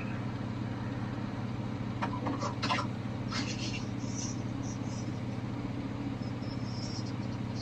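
A steady low machine hum, with a few short scrapes and knocks about two to three and a half seconds in.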